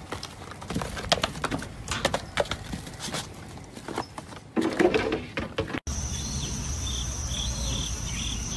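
Small goat hooves knocking and clattering on wooden posts as the goats jump and scramble, in irregular sharp knocks with a denser scuffle near five seconds. After an abrupt cut about six seconds in, insects drone steadily at a high pitch with repeated short chirps.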